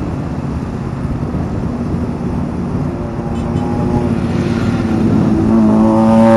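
Motorcycle riding in city traffic: a steady rumble of wind, road and engine noise, with a pitched engine drone swelling louder near the end.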